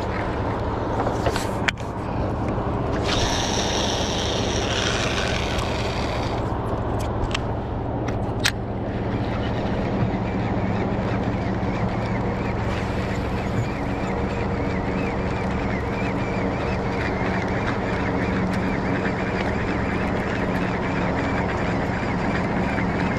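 A boat motor running steadily with a low hum, under wind and water noise. A brief higher hiss comes in about three seconds in and fades a few seconds later, with a couple of short clicks.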